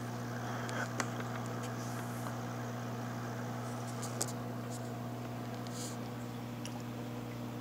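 Steady electrical hum from aquarium equipment running, with a few faint clicks.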